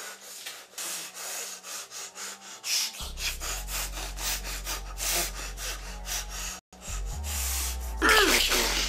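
Rapid rasping strokes of a blade sawing back and forth, cutting into a bound man's body. A low droning score comes in about three seconds in, and a loud, wavering cry of pain breaks out near the end.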